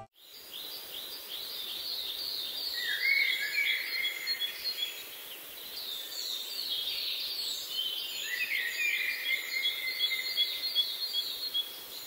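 A dense chorus of wild birds calling and singing, with many short notes sweeping down in pitch and overlapping. Lower, longer phrases join about three seconds in and again around eight seconds in.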